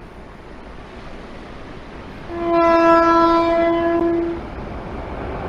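Taiwan Railway train horn sounding one long steady blast of about two seconds, a little over two seconds in, over the rush of surf and wind. The low rumble of the approaching train builds near the end.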